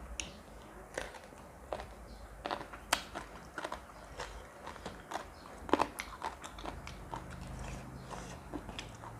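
A person chewing and crunching a mouthful of spicy seafood papaya salad with young sunflower shoots, close to the microphone. The crunches are irregular and sharp, with a louder one about three seconds in and the loudest near six seconds.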